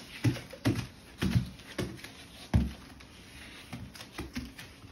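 A baby's hands and knees patting on a foam play mat while crawling: a run of soft thumps about two a second, the loudest about two and a half seconds in, then lighter pats near the end.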